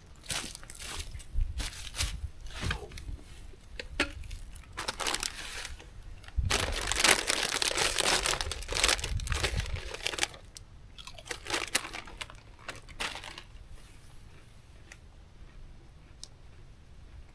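Irregular crinkling and crunching, growing dense and loudest for a few seconds in the middle, then thinning to scattered faint clicks.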